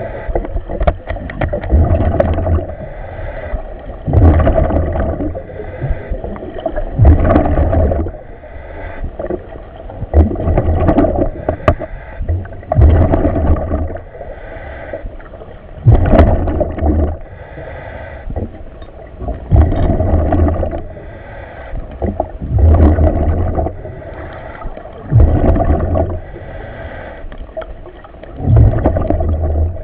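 A diver's breathing heard over the diver radio: about ten regular breaths, one every three seconds or so, each a rush of air through the breathing gear followed by gurgling exhaled bubbles.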